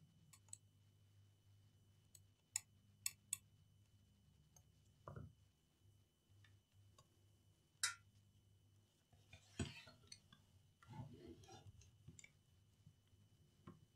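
Quiet bench handling of a laptop's plastic chassis and screen, with a low steady hum: three quick small clicks around the third second, a sharper click near eight seconds, and a short spell of plastic rustling and clatter from about ten to twelve seconds in.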